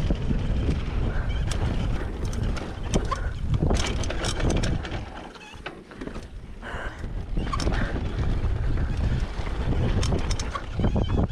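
Downhill mountain bike run heard from the rider's camera: wind rushing over the microphone and tyres on dry dirt, with frequent sharp rattles and knocks from the bike over rough ground. The noise drops away for about a second near the middle, then picks up again.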